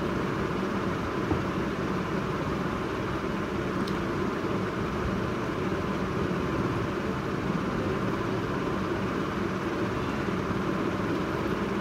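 Steady, even background hum and hiss with a low drone, unchanging throughout, with one faint click about four seconds in.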